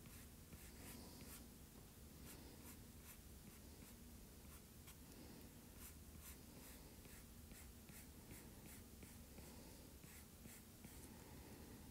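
Faint, irregular taps and short scratches of a stylus on a tablet's glass screen while drawing, over a low steady room hum.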